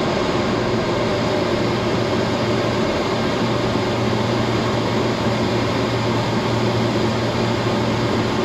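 Steady cockpit noise of a Beriev Be-200 amphibious jet in flight, descending toward the sea: its two turbofan engines running and air rushing past, with a steady low hum underneath.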